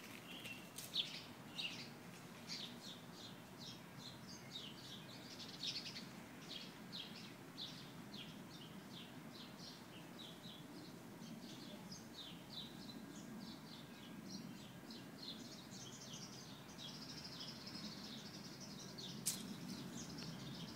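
Small songbirds chirping in quick, short calls one after another, squabbling over a pile of shed husky fur. There is a faint low rumble underneath and one sharp click near the end.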